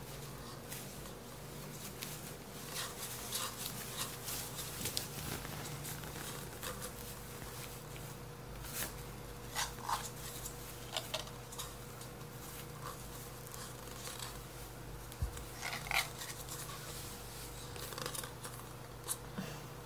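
Paper cups handled by a baby: irregular light taps, knocks and scrapes of the thin paper as the cups are squeezed, rubbed and bumped together, over a faint steady hum.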